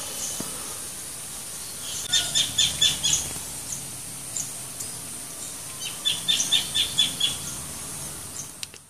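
A small bird chirping in two quick runs of about six short notes each, about five a second, over a steady high hiss.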